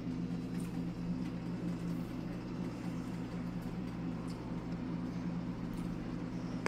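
Steady low electric hum of a kitchen appliance motor, with a few faint light clicks as metal tongs lift orange peels from a pot.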